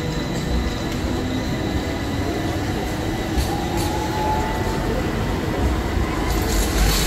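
Electric street tram rolling past close by on embedded rails: a steady low rumble of wheels on track with a faint whine. A hiss grows louder near the end.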